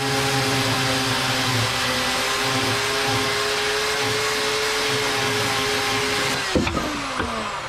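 Chainsaw motor running at a steady high speed, then released about six and a half seconds in, its whine falling in pitch as it winds down.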